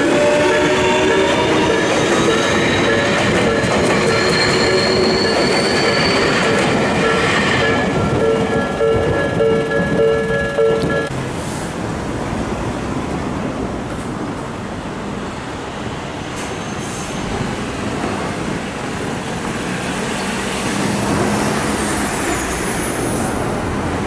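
Tobu 60000-series electric commuter train running past at a level crossing: its traction motors whine and climb in pitch over the wheels' rumble on the rails. About eleven seconds in, the train sound cuts off and gives way to steady road traffic noise.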